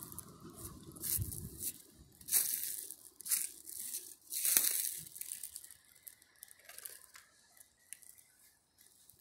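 Footsteps crunching through dry fallen leaves: an uneven run of loud crunches in the first half, thinning to quieter, sparser steps near the end.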